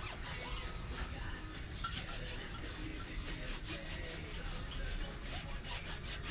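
Rubbing and scraping on a dirt-bike tire as it is worked by hand, with many short, irregular strokes.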